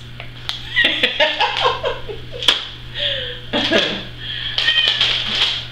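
Soft, indistinct talking and a little laughter, with a few sharp taps and clicks of grocery packaging being handled, over a steady low hum.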